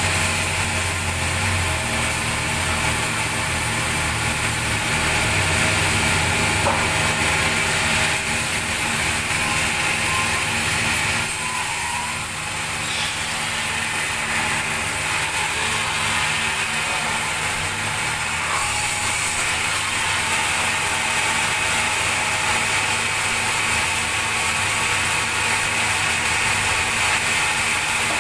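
Sawmill band saw running steadily as it cuts through a large log, giving a continuous mechanical drone.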